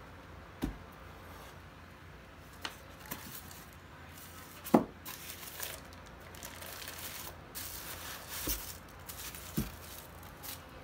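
Plastic packaging crinkling and rustling as it is handled, with several sharp knocks against a styrofoam packing box, the loudest a little under halfway through.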